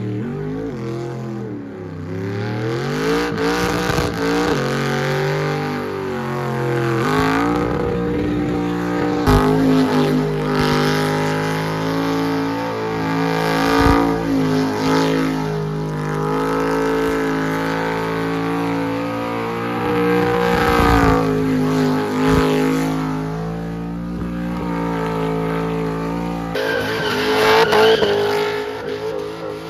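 Burnout car's engine held at high revs while its rear tyres spin on the skid pad. The revs drop and climb back several times.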